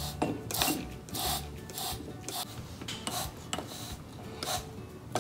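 Plastic trigger spray bottle pumped repeatedly, misting water onto cotton balls in a glass jar: about eight short hisses of spray at an uneven pace, each with the click of the trigger.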